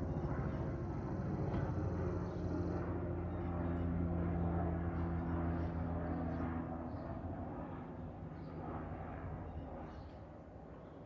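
Helicopter flying past, its rotor and engine drone steady and loudest through the first half, then fading away over the last few seconds.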